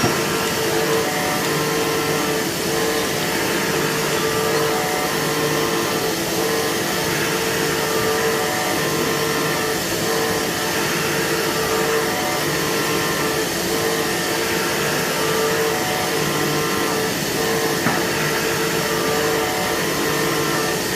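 CNC machine running steadily as it machines a metal core box mould: an even mechanical hiss with a constant mid-pitched whine and fainter steady tones above it.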